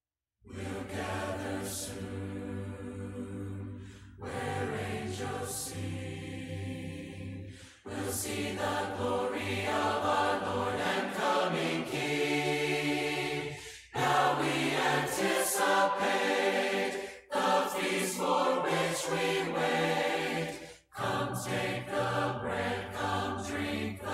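A choir singing a hymn a cappella in harmony. It sings line by line, with short breaks for breath between the phrases.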